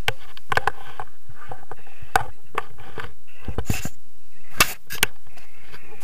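Wind buffeting a harness-mounted camera during a tandem paraglider landing, crossed by short sharp knocks and scrapes of the harness and camera mount, the loudest about four and a half and five seconds in as the pair come down onto the grass.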